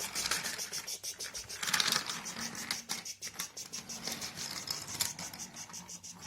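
Toy train rolling along its track, a steady rapid clicking and scraping of wheels on the rails, with a faint hum underneath.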